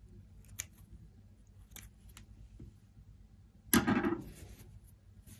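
Scissors snipping a yarn end with a few light clicks, then a louder clatter about four seconds in as the metal scissors are put down on the table.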